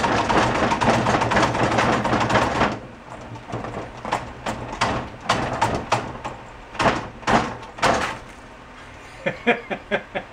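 A rough rushing noise for the first few seconds, then a series of sharp knocks and clunks as a lever is yanked on the seized engine of a 1971 Honda CB350. The stuck engine budges, spitting fluid out.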